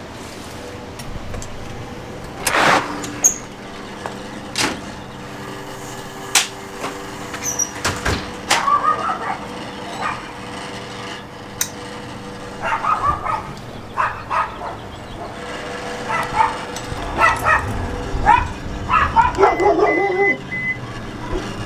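A dog barking in short repeated bursts, most densely near the end, over a steady mechanical hum, with scattered sharp clicks and knocks.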